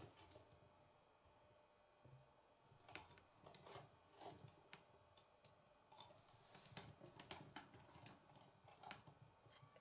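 Faint, irregular clicks and rattles of K'nex plastic parts as a K'nex flower on its rod stem is handled and twirled, most of the clicks coming in the second half.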